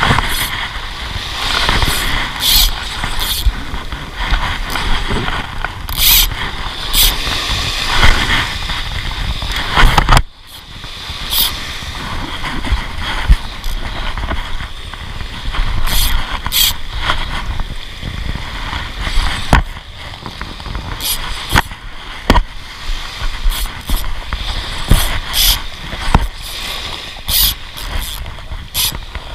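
Small waves washing up the shore and wind buffeting the microphone, with a spinning reel being wound in as the lure is retrieved.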